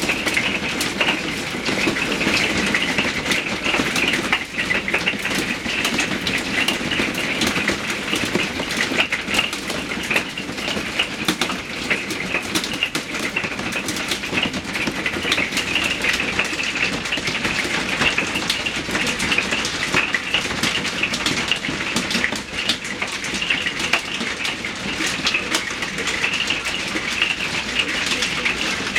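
Hail coming down hard: a dense, steady clatter of countless small impacts.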